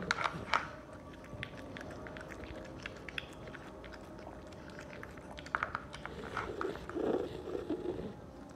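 Puppy eating soft ground food from a plastic bowl: irregular wet chewing and smacking, busier in the last few seconds.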